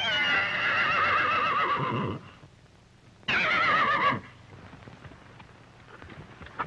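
A horse whinnying twice: a long, quavering whinny of about two seconds, then a shorter one about a second later. It is a horse in trouble, one leg caught in a tangle at the hoof.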